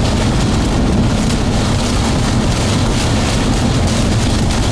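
Storm winds pounding against a moving car, heard from inside the cabin as a steady, loud rush, heaviest in the low end, mixed with road noise.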